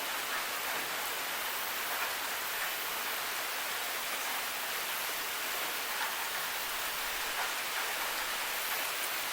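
Steady rain falling, a constant hiss of drops with faint light patter.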